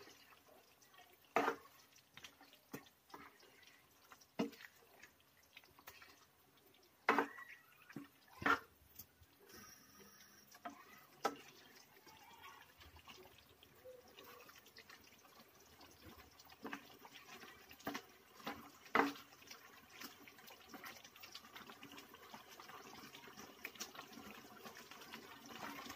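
Spatula knocking and scraping against a nonstick frying pan while stirring a thick tomato-sauce stew, in irregular clacks a few seconds apart, over the faint bubbling of the simmering sauce.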